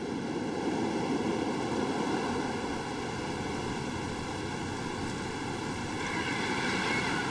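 Steady wash of surf breaking and foaming on a sandy beach, swelling a little near the end.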